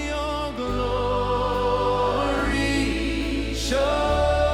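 Gospel-style worship music with sung choir voices holding long notes over a steady bass, the chords changing about every second and a half.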